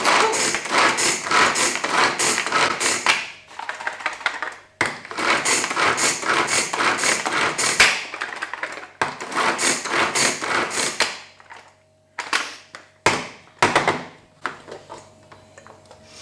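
Hand-powered pull-string food chopper chopping onion: three long runs of rapid rattling clicks as the cord is pulled again and again and the blades spin in the plastic bowl, then a few separate knocks as the chopper is handled and opened.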